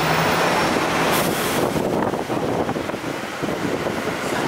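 Hong Kong double-deck tram running along the street, heard from on board: a steady rolling rumble that eases a little about two seconds in.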